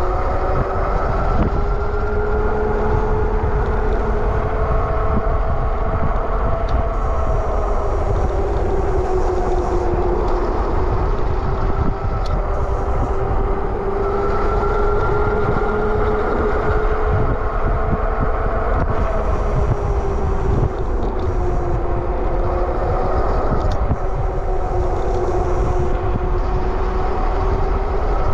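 Super73 RX electric bike's hub motor whining while riding, its pitch slowly rising and falling with speed, over a heavy rumble of wind on the microphone.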